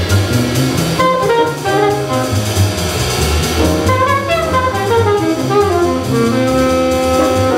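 Small jazz combo playing: an alto saxophone plays a moving line of quick notes over piano, upright bass and drum kit with cymbals.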